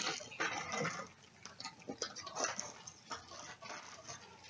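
Packaging being opened by hand: a Funko blind box and the black foil bag inside, giving scattered crinkles and small clicks.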